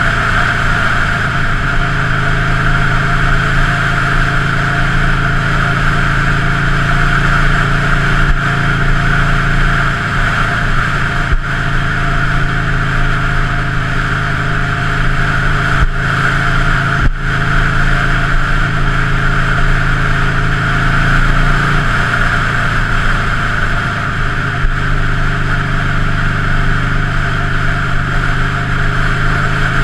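2003 Buell Lightning XB9's air-cooled V-twin engine running steadily, with a steady hiss over it and a few brief clicks in the middle.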